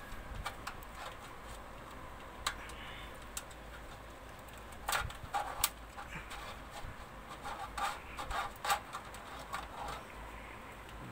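Scattered clicks and rustling of cables being handled and pushed into place inside a PC case, busiest about five seconds in and again near the end.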